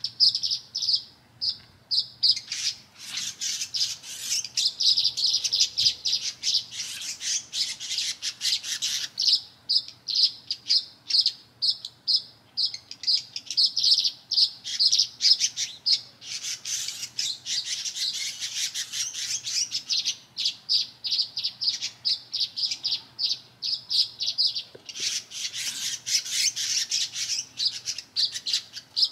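Small birds chirping rapidly and without pause, with denser runs of calls a few seconds in, around the middle and near the end. The birds are tree swallows and house sparrows calling over a contested nest box.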